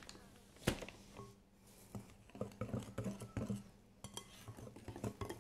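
Wire whisk stirring cake batter in a glass mixing bowl, its metal wires clicking and scraping unevenly against the glass, with one sharp knock less than a second in.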